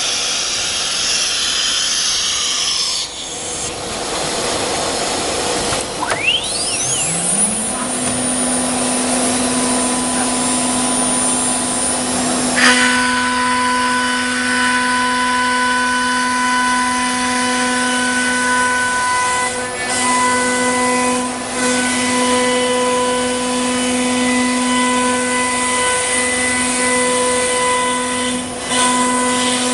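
ATC CNC wood router at work. About six seconds in its spindle spins up with a rising whine and settles into a steady hum. A sharp knock comes about halfway through, and then the spindle cuts a wood panel with a steady, many-toned whine of spindle and drive motors.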